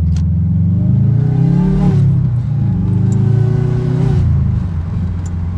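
2008 Subaru WRX's turbocharged flat-four engine under acceleration, with a groaning tone that rises with the revs, holds steady, then drops away about four seconds in. The owner takes the groan for a boost leak.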